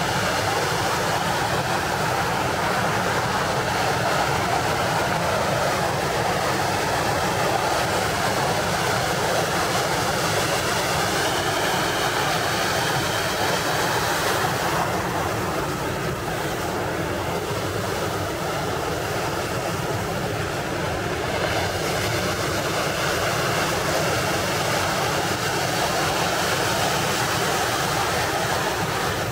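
Ocean surf: a steady rushing of waves breaking on the shore.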